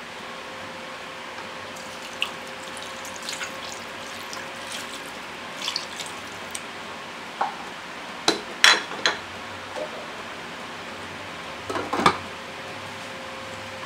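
Water poured from a measuring cup into a stainless-steel cooking pot of pork hocks, with scattered clinks and knocks of cup and pot, loudest about two-thirds through. Near the end a glass pot lid is set down on the pot with a short clatter.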